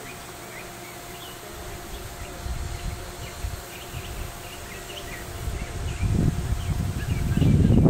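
Outdoor ambience of small birds chirping faintly and often, over a faint steady hum. Low rumbling noise on the microphone builds from about two seconds in and is loudest near the end.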